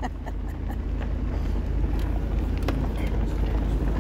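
A vehicle rolling slowly along a dirt track, heard from inside: a steady low rumble of engine and tyres, with a couple of faint clicks about halfway through.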